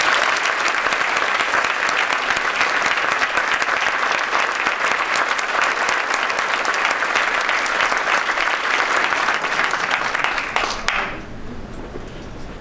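An audience of many people applauding, an even clatter of clapping that dies away about eleven seconds in.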